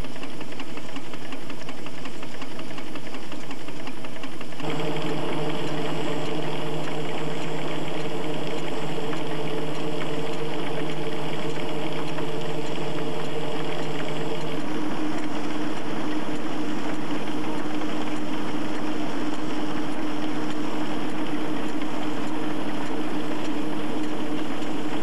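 Steam traction engine driving a threshing drum through a long flat belt: steady machinery running with a hum of several tones. The sound changes sharply about five seconds in, and the pitch of the hum shifts again about fifteen seconds in.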